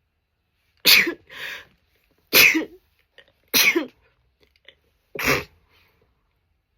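A woman sneezing four times in a row, about a second and a half apart, with a softer follow-up sound just after the first sneeze.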